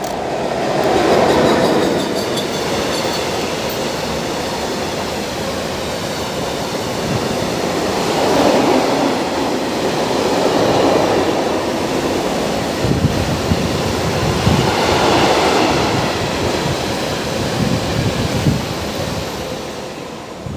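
Freight train of tank wagons rolling past at close range: a loud, continuous rumble of steel wheels on the rails that swells and eases in waves. Knocking over rail joints shows up in the second half.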